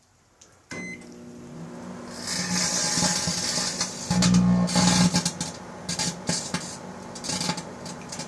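Microwave oven starting with a short beep and running with a steady hum. The aluminium drink can inside arcs: crackling from about two seconds in, then loud buzzing bursts from about four seconds in, stopping and starting.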